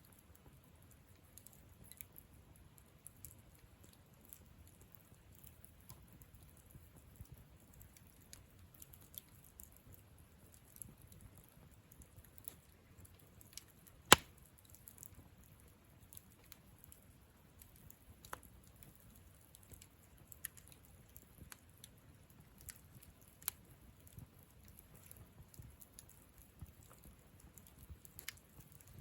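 Campfire burning wood with quiet, scattered crackles and ticks, and one sharp loud pop about halfway through.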